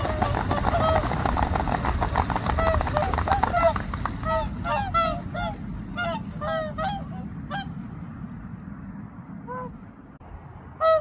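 A flock of whooper swans calling: a dense chorus of honking calls that thins out about four seconds in to scattered single calls, over a steady low background noise.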